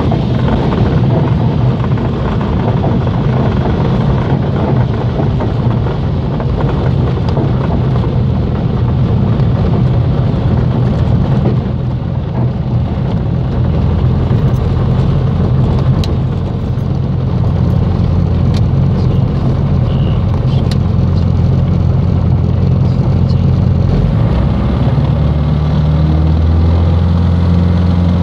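Grob 109 motor glider's piston engine and propeller running at low power, heard from inside the cockpit while the aircraft taxis on grass. The engine note changes and grows stronger near the end.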